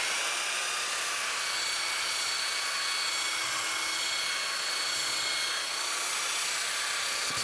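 Handheld belt sander running steadily with a high whine, its coarse belt sanding across the surface of a glued-up maple board.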